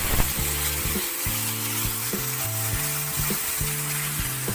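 Thick coconut milk sizzling and bubbling as it is poured into a hot, dry wok, a steady frying hiss, with background music underneath.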